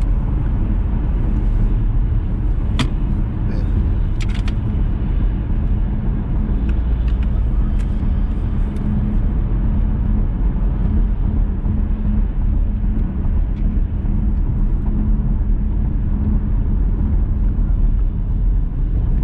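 Steady engine and road rumble inside a moving car's cabin, with a faint steady hum and a few light clicks in the first half.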